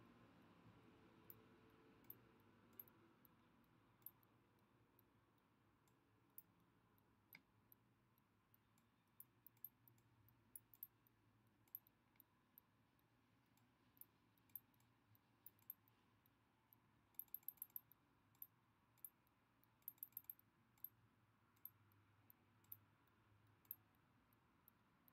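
Faint, irregular computer mouse clicks over near-silent room tone, with quick runs of several clicks about seventeen and twenty seconds in.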